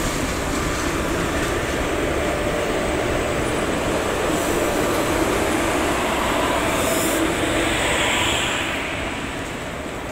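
Indian Railways passenger train rolling along the platform as it pulls in, a loud steady rumble of coaches on the rails that eases near the end.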